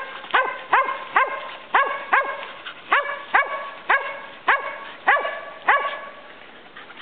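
Mountain feist barking steadily, about two short, sharp barks a second, each bending up and down in pitch. This is a treeing bark, the dog telling that it has game treed. The barking stops about six seconds in.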